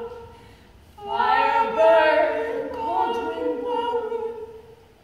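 Several voices singing together without instruments, one note held steady beneath higher voices that bend and slide. The singing dips at the start, swells again about a second in, and fades away shortly before the end.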